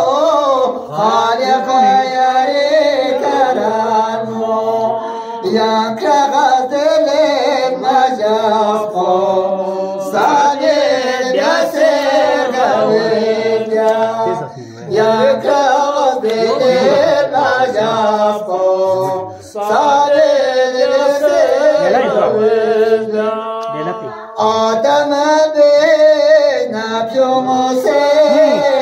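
Two men singing a song at close microphones, taking turns. There are short breaks between phrases.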